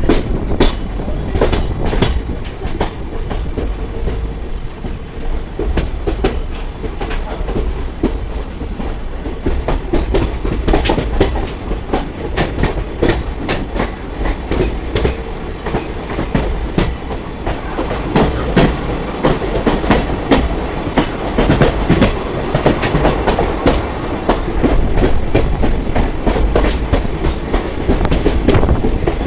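Passenger express train running along the track, heard from on board: a steady rumble of wheels on rails with rapid, irregular clicks and clatter over the rail joints.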